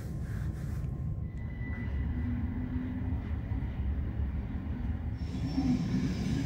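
Steady low rumble heard from inside a Rhaetian Railway electric train as it pulls out of a station, with a faint motor hum.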